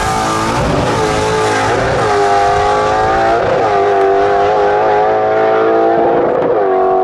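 Drag car launching from the line with its rear tyres spinning, then accelerating hard down the strip. Its engine note climbs and drops back at each of several gear changes, then holds steady near the end.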